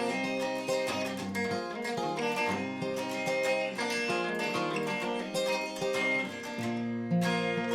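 Instrumental break of a folk song: strummed and picked acoustic guitar with bass, no vocals.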